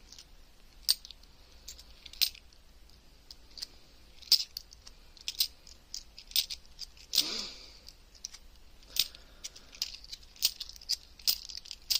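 50p coins clinking against each other as a stack is thumbed through in the hands, in scattered sharp metallic clicks, with a slightly longer clatter about seven seconds in.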